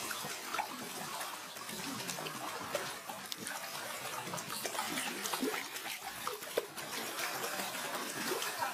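Shallow, muddy pond water splashing and sloshing as large koi thrash and are guided by hand into an inflatable pool, a continuous jumble of small splashes.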